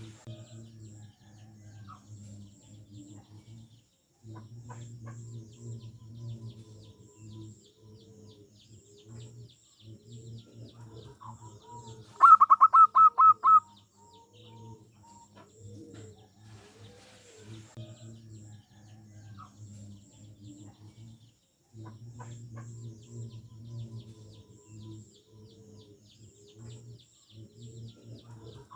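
Zebra doves cooing, a series of soft staccato coos repeated over and over with short pauses. About twelve seconds in, a brief, much louder run of rapid high chirping notes cuts across them.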